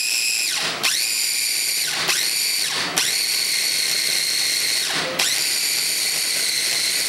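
Small electric food processor's motor whining in a string of pulses: it cuts out briefly and spins back up about five times, the later runs lasting about two seconds each. It is mixing flour and an egg into crumbly pasta dough.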